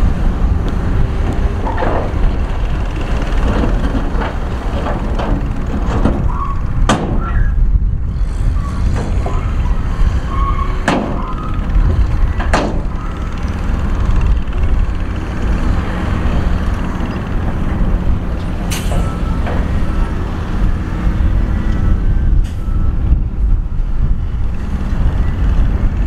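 Heavy diesel earthmoving machinery running with a steady, deep engine rumble, with a few sharp clanks scattered through.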